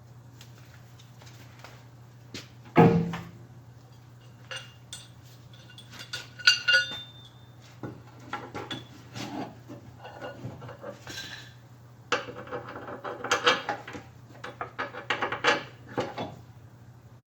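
Metal pump parts clinking and knocking as a lift pump and its back plate are handled and fitted together, with one loud knock about three seconds in and a run of quick clattering near the end. A faint steady hum runs underneath.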